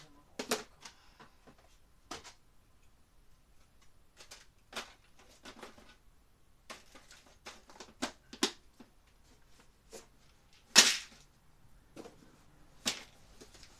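Irregular clicks, knocks and light clatter of small items being handled and put away, a dozen or so short sounds spaced unevenly, with one sharper knock about eleven seconds in.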